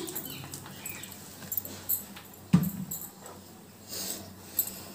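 Hot oil in a wok sizzling faintly with scattered small crackles, and one louder, short sound about two and a half seconds in.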